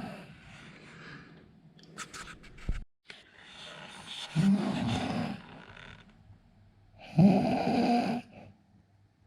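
A sleeping man snoring: two loud snores about three seconds apart, the second the louder, with quieter breathing between them.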